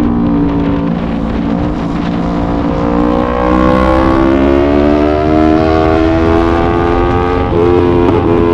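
Yamaha YZF-R3 parallel-twin sport-bike engine running under load. Its note sits low at first, then rises steadily over several seconds as the bike accelerates.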